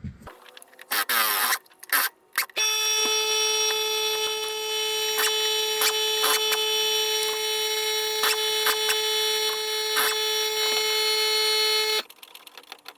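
A power tool working on a wheel's lug nuts: a few clanks, then a steady high-pitched buzzing run of about nine seconds with clicks through it, cutting off suddenly.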